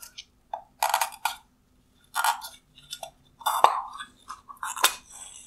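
Hard plastic turn-signal lens and chrome-plated reflector being handled and pried apart by gloved hands: short crackling and scraping bursts, with sharp snaps about three and a half and five seconds in as the single retaining clip is worked free.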